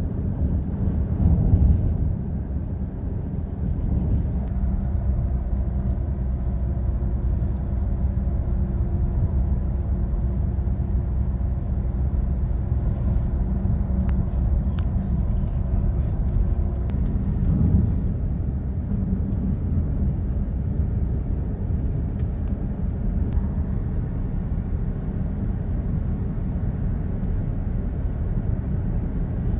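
Road noise inside a moving car: a steady low rumble of engine and tyres at highway speed, swelling briefly about a second in and again about halfway through.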